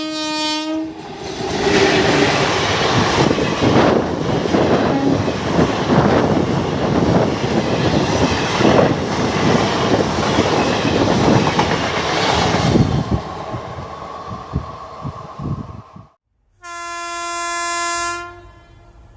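An Indian Railways WAP-4 electric locomotive's horn ends about a second in. The passenger coaches then rush past with wheels clattering over the rail joints, fading away. After a brief cut, a WAG-9 electric locomotive's horn sounds one blast of about a second and a half near the end.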